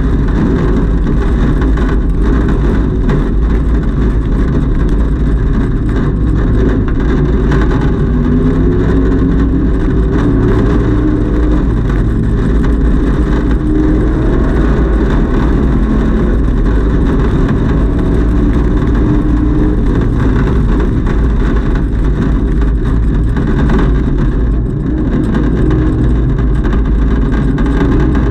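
Race-prepared Chevrolet Camaro's engine running hard at speed, heard loud from inside the stripped, caged cabin together with road and wind noise. The engine note rises and falls with throttle, with a brief drop in level about 24 seconds in as the car slows.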